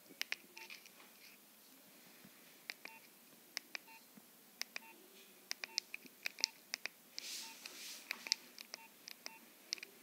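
Nokia 2220 slide phone's keypad being pressed in a quick, irregular series: about twenty sharp key clicks, many followed by a short key beep from the phone as it steps through its menus. A soft hiss runs for about a second and a half in the second half.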